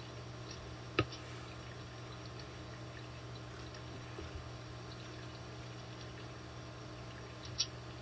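Computer mouse clicks over a steady low electrical hum and hiss: one sharp click about a second in and a fainter one near the end.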